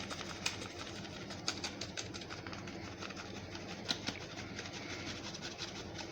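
Irregular light clicks and taps as chopped vegetables are peppered, over a steady low electrical hum.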